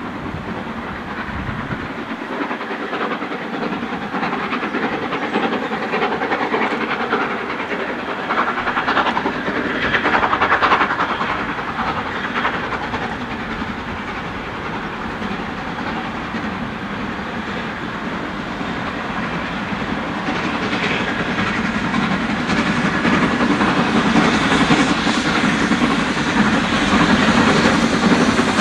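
Two steam locomotives double-heading a passenger train, an LNWR Webb Coal Tank 0-6-2T leading a Midland 0-6-0, working under steam with their exhaust beats and the rumble of the train growing louder as they approach.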